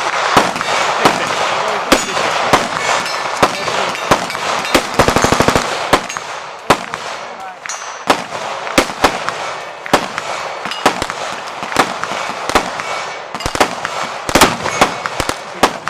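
Gunfire on a busy shooting range: scattered single shots from several guns going off irregularly. About five seconds in, one gun fires a rapid full-auto burst of about a dozen rounds lasting under a second.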